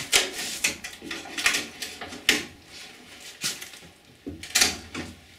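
A hand tool scraping and cutting along the fibreglass-laminated edge of a wooden kayak hull, trimming back the flange in short, uneven strokes.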